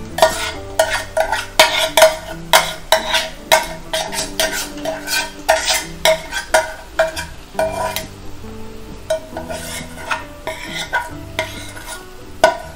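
Steel spoon scraping and knocking against metal pans in quick repeated strokes, each with a short ring, about two to three a second and thinning out near the end, as cooked mushroom pieces are scraped from one pan into another.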